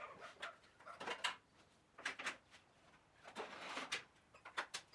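Wooden flip-top tool cart being turned over by hand, bench grinder going under and belt/disc sander coming up: scattered knocks and clicks of the wooden top and tools shifting, with a brief rushing noise a little past halfway as the top swings round.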